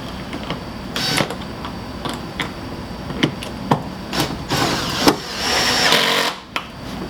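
Screws being driven in to refit a van's rear door handle: a series of sharp clicks and knocks, with a longer stretch of steady driving noise from about four and a half to six seconds in.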